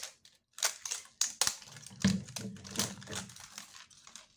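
Plastic wrapping of a LOL Surprise toy ball crinkling and crackling as hands pull and squeeze at it: a run of irregular crackles, thickest about halfway through and thinning near the end.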